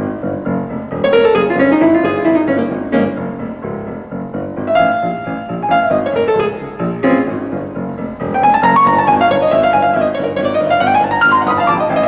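Piano music: quick runs of notes that climb and fall in arcs, played in several short phrases.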